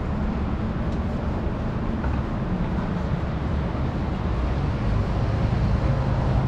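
Steady low rumble of city street traffic, with no distinct events, growing a little louder near the end.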